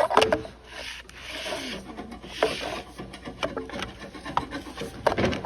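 Hand scraping and rubbing on engine parts: two longer scraping strokes early on among scattered knocks and clicks, with a sharp clatter at the start and another near the end.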